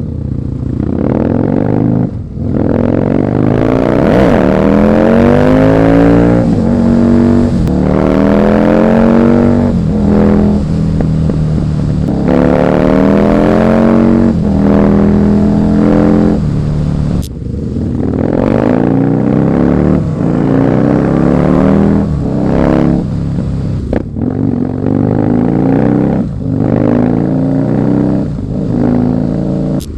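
Husqvarna Nuda 900R's parallel-twin engine revving under acceleration, its pitch climbing and then dropping back at each gearshift, several times over.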